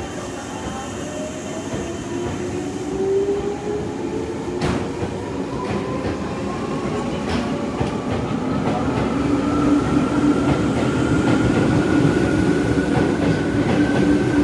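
Izukyu 8000 series electric train pulling out of the platform, its traction motors giving a whine that rises steadily in pitch as it gathers speed. The sound grows louder throughout, with occasional clacks of wheels over rail joints.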